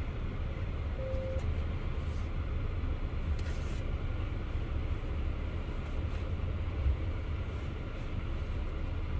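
Steady low road and engine rumble inside a moving car's cabin. A short faint tone sounds about a second in, and there is a small bump near the seventh second.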